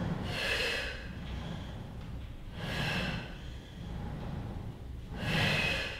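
A woman's paced exercise breathing: three short, airy breaths about two and a half seconds apart, timed to the legs reaching out and the knees drawing in.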